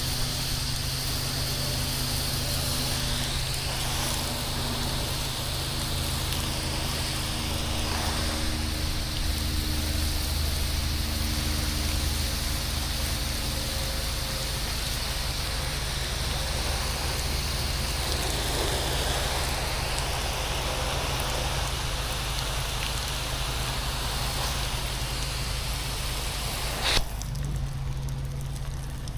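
Pressure washer running steadily with water spraying hard onto a surface. Near the end the spray cuts off with a click, while the machine keeps running.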